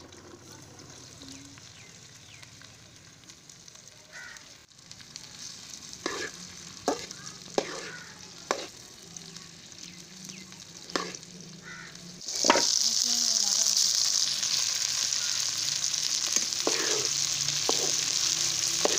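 A few sharp knocks and clicks, then about twelve seconds in a sudden loud sizzle as okra goes into hot ghee in a karahi, frying steadily from then on.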